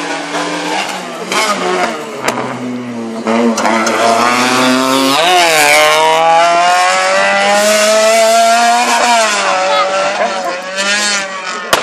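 Rally car engine (a Peugeot 206 rally car) revving hard as it accelerates past at close range: its pitch climbs sharply about five seconds in, holds high, falls back about nine seconds in, and climbs again near the end.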